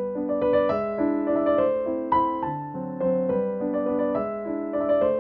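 Soft background piano music, notes struck and left to ring in a gentle flowing line.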